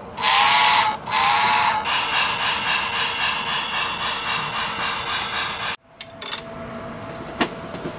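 A battery-powered BRIO toy locomotive's sound button is pressed. Its small speaker plays two short, loud electronic sound effects, then a longer steady one that cuts off suddenly a little over halfway through. A few light clicks follow.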